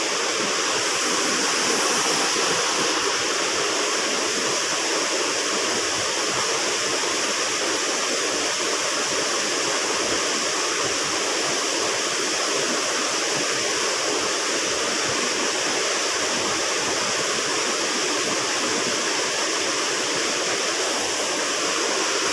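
A small river running steadily, with an even rush of flowing water.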